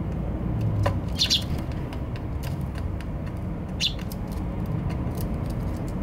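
Eurasian tree sparrows feeding, with two short high chirps about a second in and near the middle, and scattered light ticks, over a steady low background rumble.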